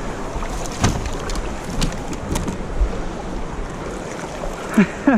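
Shallow river rapids rushing steadily around a plastic fishing kayak held in the current, with wind on the microphone and a few sharp knocks. Near the end there are two short, loud sliding squeaks.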